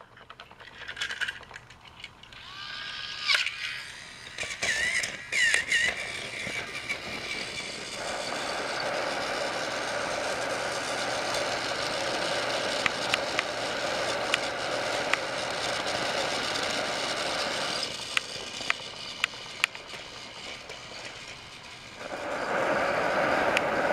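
Battery-powered Trackmaster toy engine running on plastic track: the steady whirring rattle of its motor and wheels. The sound drops back for a few seconds, then returns louder, with occasional sharp clicks.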